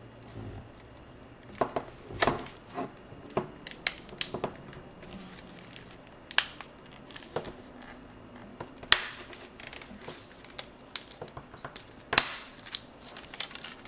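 Plastic back panel of an LG VN251 phone being pried off, its clips giving irregular clicks and snaps. A few snaps are sharper than the rest, the loudest about nine seconds in.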